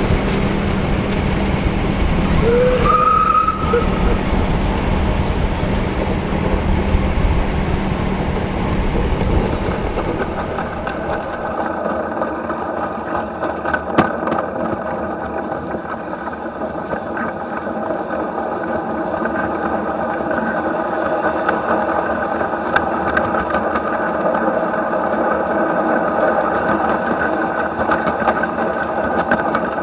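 Live-steam 1/8-scale Class 23 locomotive on 7¼-inch gauge track running past with a continuous rumble of wheels on rail, with a brief high-pitched tone about three seconds in. From about eleven seconds in it is heard up close beside its cylinders and running gear: a steady running sound with several held tones and occasional sharp clicks.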